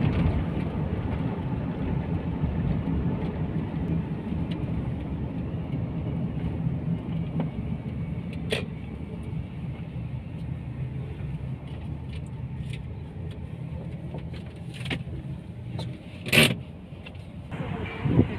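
Road and engine noise heard from inside a moving car: a steady low rumble that gradually eases off, with a few sharp clicks and a louder knock about sixteen seconds in.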